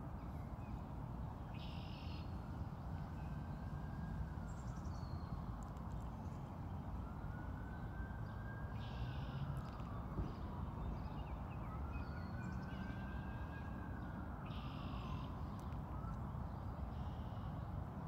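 Outdoor park ambience: a steady low rumble of wind and traffic, a siren slowly rising and falling about every five seconds, and a few short bird calls.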